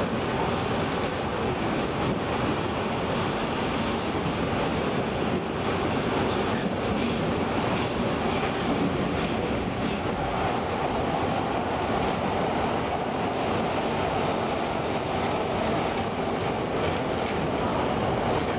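Stockholm commuter rail Class X10 electric multiple unit running along the line, a steady rolling noise heard from inside the carriage.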